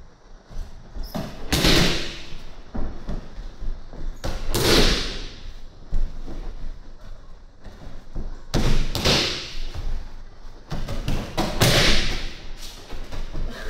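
Aikido breakfalls on tatami mats: four heavy thuds about three seconds apart as a partner thrown with a wooden jo lands on the mats, with lighter knocks of feet and bodies between them.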